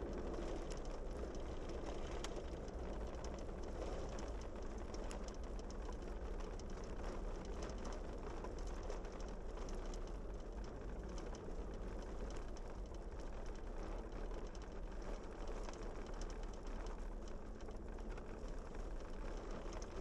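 Steady road noise of a vehicle driving on a hard-packed snow and gravel road, heard from inside: an even drone of engine and tyres, with faint scattered ticks.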